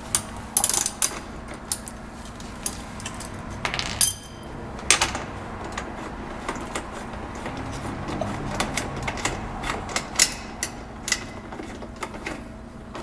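Wrench and metal exhaust hardware being worked on a motorcycle exhaust clamp: irregular metallic clicks and clinks, a few louder clanks among them.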